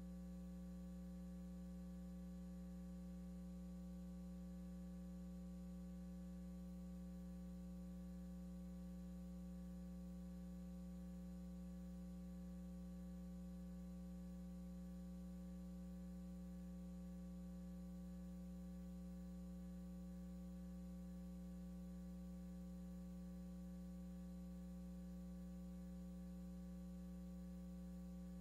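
A steady, low electrical hum with its overtones, unchanging throughout, and no other sound above it.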